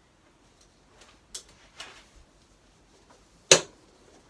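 Adjustment dials on an adjustable dress form being turned: a few soft clicks, then one sharp click about three and a half seconds in.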